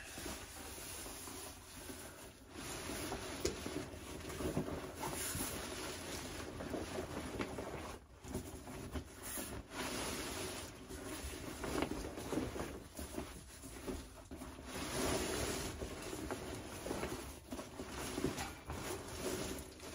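Handling noise: a nylon carry bag rustling and scraping as it is worked up off a folded pop-up canopy's frame, with occasional short knocks.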